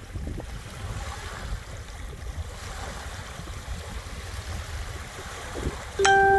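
Small waves washing on the shore of Long Island Sound at ebb tide, with wind rumbling on the microphone. Near the end a loud, steady, horn-like tone starts suddenly.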